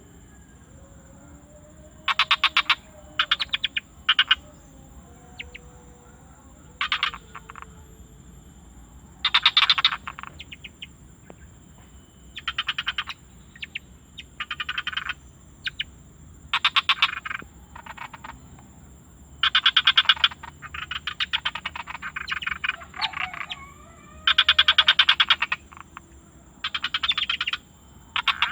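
Frogs calling in fast pulsed trills, each burst under a second long and repeating every second or two, with a steady high-pitched whine underneath.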